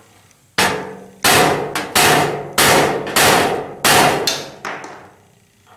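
A hammer tapping a nail used as a punch against a sheet-metal chimney support box, to start holes for self-tapping screws. There are six sharp, ringing blows at a steady pace, about one every two-thirds of a second, then a couple of lighter taps.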